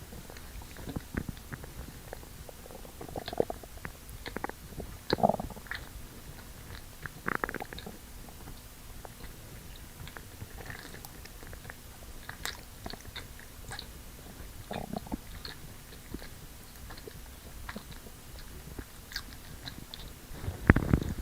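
Stomach gurgling and growling: irregular short gurgles and squelchy clicks, with louder gurgles every few seconds and a louder rumble at the very end.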